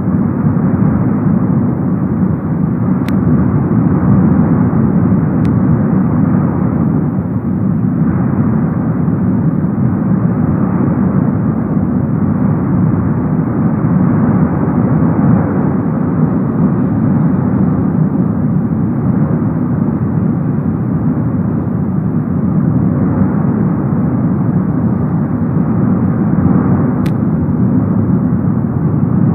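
Continuous deep rushing noise of the Cumbre Vieja volcanic vent jetting lava and gas in a steady fountain, even in level without pauses or separate blasts.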